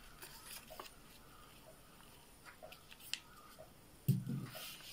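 A sheet of paper being folded in half by hand and the crease pressed flat against the table: faint scattered rustles and crinkles, with a soft thump about four seconds in.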